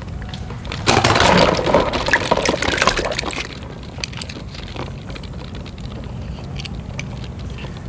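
Plastic balls jostling and clattering in a tub as hands rummage through them, a dense rush of clicks starting about a second in and dying away after about two seconds, followed by a few small clicks of toy cars being handled.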